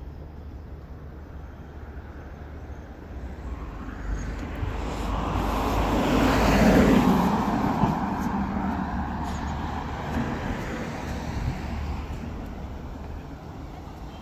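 A car driving past on the street: its engine and tyre noise swells to a peak about halfway through and then fades away, over a steady low hum of distant traffic.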